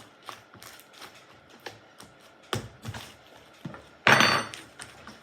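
A lump of slime being pressed onto a tabletop and pulled off again to pick up bits, with scattered light taps and knocks. One louder, brief clatter comes about four seconds in.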